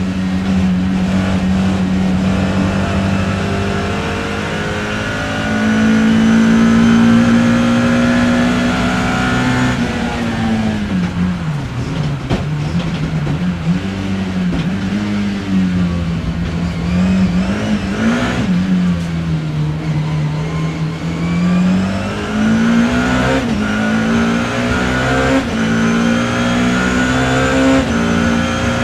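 BMW E30 M3 race car's four-cylinder S14 engine heard from inside the car, held at high revs on the throttle. About ten seconds in the revs drop, with several short rises and falls as it slows and downshifts, then sit low for a moment before climbing steadily again as it accelerates.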